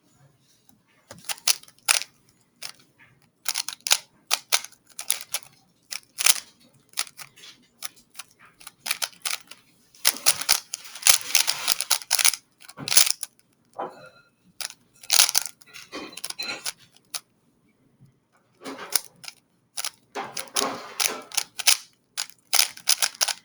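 Plastic speedcube being turned fast during a solve: runs of quick clicking and clacking from the layers, with brief pauses, densest about ten seconds in and again near the end.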